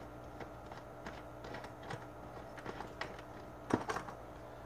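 Irregular plastic clicks and taps from handling the fittings on a Fluval FX6 canister filter's lid, with a louder cluster of clicks near the end, over a steady low hum.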